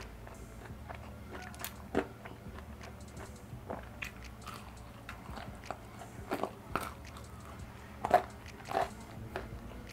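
Biting into and chewing crunchy Korean fried chicken: irregular crisp crunches of the fried coating, the loudest a few about eight seconds in.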